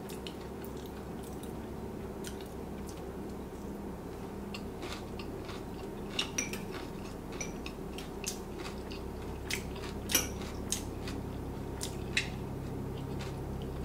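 A metal spoon clinking several times against a small glass bowl of chili sauce as sauce is scooped and spooned onto sushi rolls, over a low steady hum. The loudest clink comes about ten seconds in.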